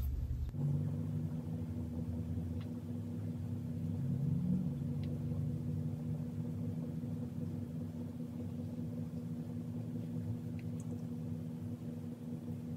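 A steady low mechanical hum made of several fixed tones, with a few faint clicks.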